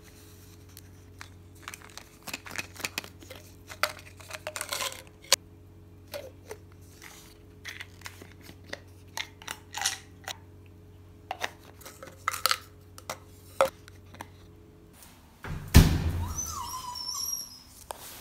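A run of small clicks and knocks as plastic supplement bottles are handled on a hard tabletop. About fifteen seconds in, the sound turns louder and busier, with a small poodle whining.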